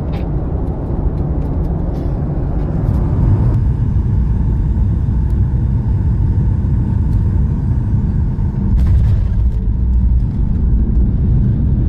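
Cabin noise of a Boeing 737-800 with CFM56 engines coming in to land: a loud, steady rush of engines and airflow whose higher hiss drops at about three and a half seconds. About nine seconds in a sharp thump comes, and a heavier low rumble follows, consistent with touchdown and the wheels rolling on the runway.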